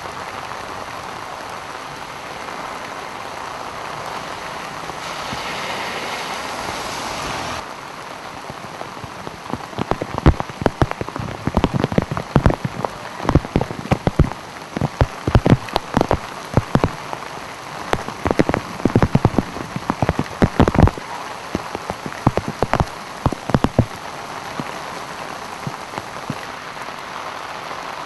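Heavy rain falling steadily on a flooded street. A louder rushing wash swells for a couple of seconds about five seconds in and cuts off abruptly, and through the middle stretch loud irregular knocks and pops break over the rain, then die away.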